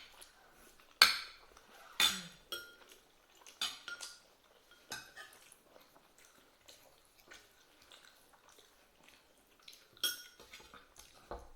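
Cutlery clinking and scraping against plates during a meal, in scattered sharp clinks with quiet gaps; the loudest come about one and two seconds in and again near the end.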